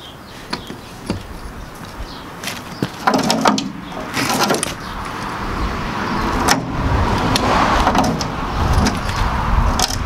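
A wrench working the stuck, rusted lug nuts on a skid-steer's front wheel hub: sharp metal clicks and clinks, then a few longer rasping stretches of tool on nut.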